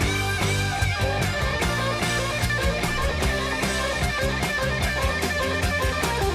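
Southern rock recording in its long guitar-solo section: fast electric guitar lead lines over drums and bass, dense and steady, with drum hits several times a second.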